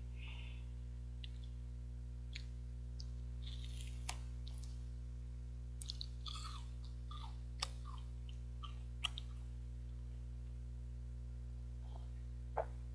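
Close mouth sounds of a person chewing a grain chocolate bar and sipping hot coffee: scattered soft chewing noises and several sharp clicks, over a steady low hum.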